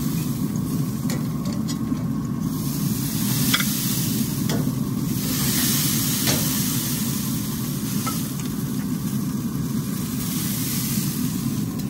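Steaks sizzling on the hot grates of a pellet grill over a steady low rumble, with a few sharp metal clicks as tongs grip them and lift them off the grate.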